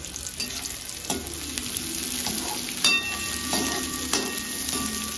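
Chopped onions sizzling in hot oil in a steel kadai, stirred with a perforated steel spoon that scrapes and knocks against the pan a few times. After a knock about three seconds in, the pan rings briefly.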